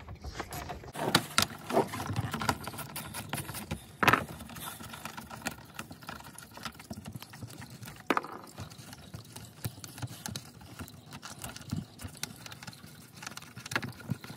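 A hand ratchet with a 10 mm socket clicking as it backs out the bolts holding the plastic undercover over the oil filter. Scattered clicks and knocks follow as the bolts and cover are handled, with sharper knocks about 4 and 8 seconds in.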